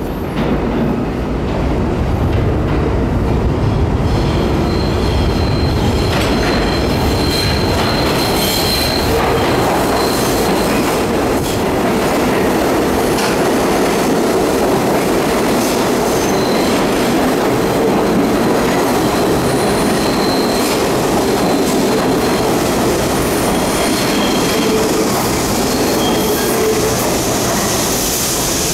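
R62A subway train approaching out of the tunnel and pulling into an underground station along the platform: a loud, steady rumble of steel wheels on rail, with high wheel squeal coming and going from about five seconds in and occasional clicks over rail joints.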